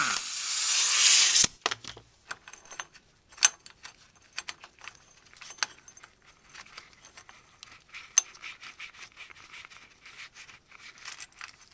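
Pneumatic impact wrench running on the nut of a ball-joint press, a loud air rush that cuts off suddenly about a second and a half in; the press is drawing the old ball joint out of the ATV's steering knuckle. Then scattered clicks and clinks of the metal bearing cup, washers and socket being handled by hand.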